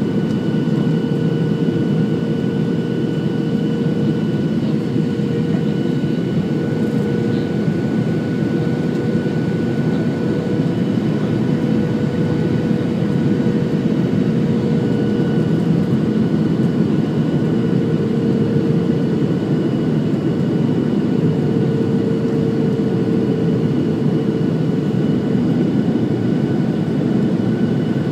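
Steady cabin noise of a Boeing 737-700 in flight, heard from a seat over the wing: a dense rush of airflow and the CFM56-7B engines' drone, with a steady hum and fainter higher whines held above it.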